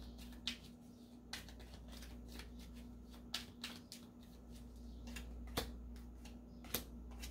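A tarot deck being shuffled by hand: quiet, irregular card slaps and riffles.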